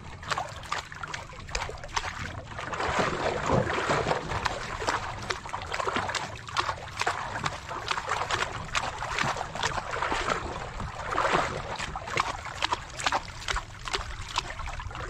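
Water lapping and sloshing against the hull of a small boat on a swell, with many small irregular splashes and knocks.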